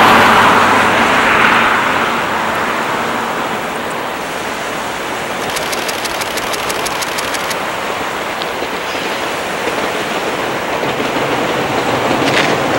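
Small waves washing on a sandy beach, a steady wash of noise that is loudest at the start and eases off over the first two seconds. Under it a JR East E653 series electric train runs past along the coastline, with a short run of fast high ticks about halfway through.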